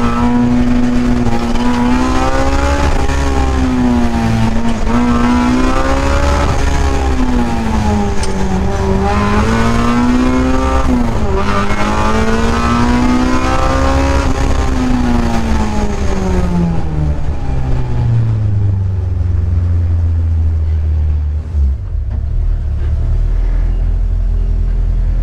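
Honda K-series four-cylinder engine of a K-swapped Mazda Miata, heard from inside the cabin, revving high and rising and falling again and again with the throttle through an autocross course. About seventeen seconds in, the revs drop away and it settles into a low steady run.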